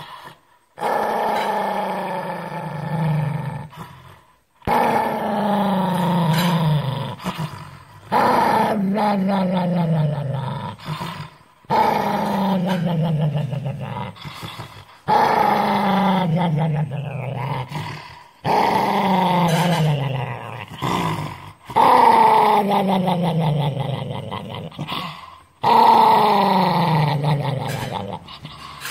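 Small long-haired dog growling in about eight long growls, each sliding down in pitch, with short breaks between them: an angry warning growl as a hand holds its muzzle.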